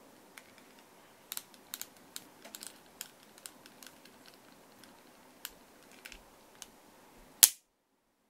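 Mechanism of an HWS Type 26 model revolver being handled: a run of light clicks and snaps, irregularly spaced over several seconds, then one sharp, much louder click near the end, after which the sound cuts off.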